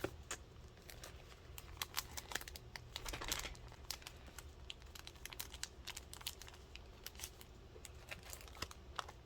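Packaged sticker packs being handled, their wrappers crinkling in many small, sharp crackles, with a denser rustle about three seconds in.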